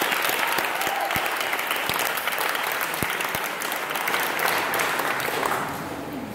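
A crowd applauding, the claps dying away a little before the end.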